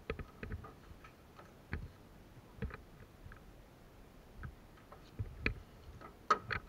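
Irregular sharp clicks and ticks, a few at a time with gaps between them, and a quick cluster of louder ones near the end.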